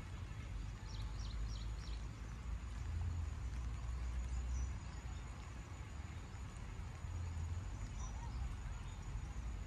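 Outdoor ambience: a steady, uneven low rumble with a few faint, short high chirps about a second in and again near the end.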